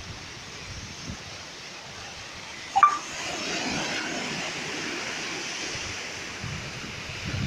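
Sea surf washing on the shore. About three seconds in there is a short sharp sound, then a wave's wash swells and slowly eases off.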